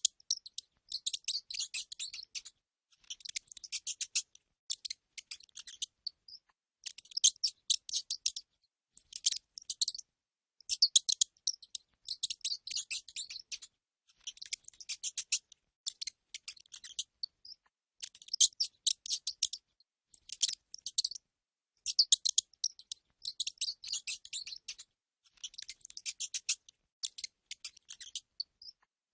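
Rat squeaking and chittering in short bursts of rapid high-pitched clicks and squeaks, repeating every second or two.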